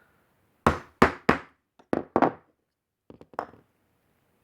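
Hammer tapping a center punch to stake the pins that hold a loose weight in a keyboard key, the cause of its clunking. Light, sharp taps: three in quick succession, then two more, then a few fainter ones later.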